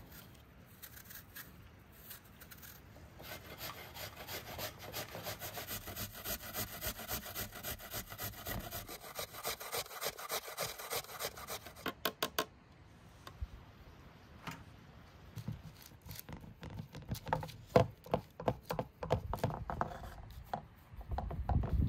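Hand food preparation: a run of quick, rhythmic rasping strokes lasting several seconds, then a few sharp knocks followed by scattered taps and thumps.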